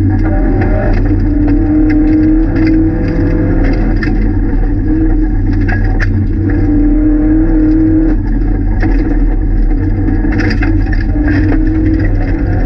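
Rally car engine heard from inside the stripped cabin, pulling hard and rising in revs again and again as it runs through the gears, with gravel ticking and rattling against the underside of the car.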